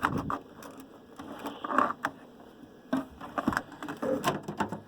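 A string of irregular knocks, clicks and short scrapes, like hard objects being handled and set down.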